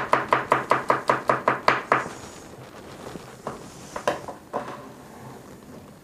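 Kitchen knife quickly chopping garlic cloves on a plastic cutting board, about five or six even knocks a second, stopping about two seconds in. A few scattered knife knocks on the board follow a little later.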